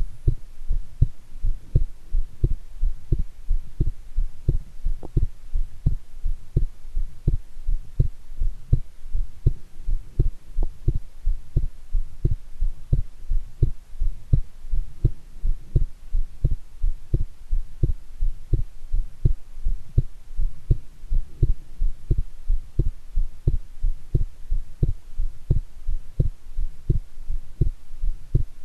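Human heartbeat recorded close up, a steady rhythm of strong, pounding low beats: a pulse running high and forceful just after a shower.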